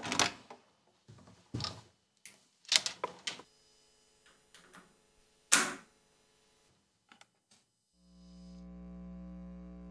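A string of separate sharp clicks and knocks from close-up handling of acoustic guitars. About eight seconds in, a steady sustained low tone fades in and holds.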